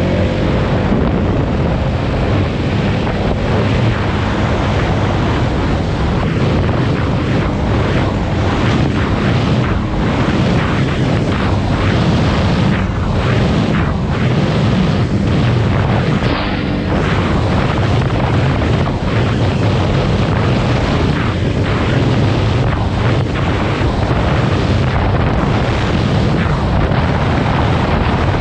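Polaris Sportsman 570 ATV's single-cylinder engine running steadily under way, with wind buffeting the microphone.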